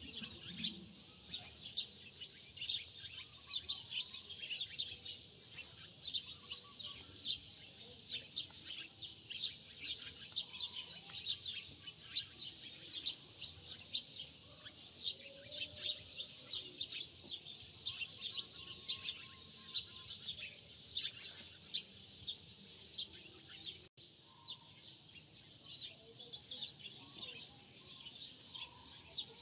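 Birds chirping continuously in the background, many short, high calls a second.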